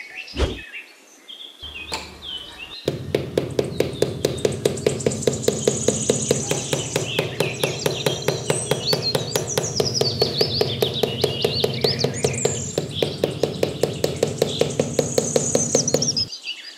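A small machine runs steadily, humming with a rapid, regular clicking; it starts about three seconds in and cuts off shortly before the end. Birds chirp over it.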